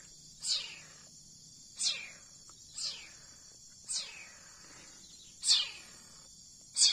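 Leopard cat kitten crying while being syringe-fed milk: six short, high-pitched mews, each sliding down in pitch, about a second apart.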